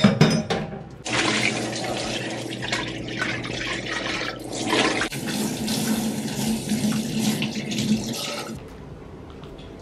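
Kitchen tap running into a stainless-steel sink while a plastic food container is rinsed, with a few knocks at the start and clatter through the water. About eight and a half seconds in, the running water stops and a quieter steady hiss is left.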